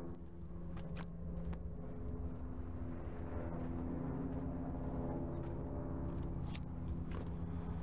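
A vehicle engine running steadily at an even pitch, a constant low hum, with a few faint clicks.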